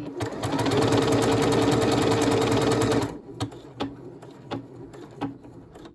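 Necchi NM2000 computerised sewing machine stitching out a lettering pattern (a capital M), needle running fast and even over a steady motor whine for about three seconds, then stopping abruptly when the letter is done; a few light clicks follow.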